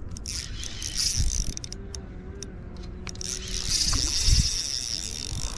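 Spinning fishing reel working, a fast mechanical clicking whir in two spells, the second running longer, with a couple of dull handling knocks.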